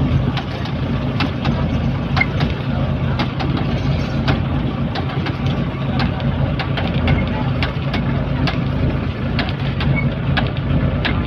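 Outrigger fishing boat's engine running steadily at low speed, a constant low drone, with scattered light clicks and knocks from the work on deck.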